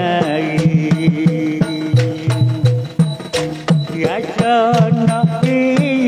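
Shadow-puppet theatre ensemble music: hand drums beating a steady rhythm under a wavering, ornamented melody line.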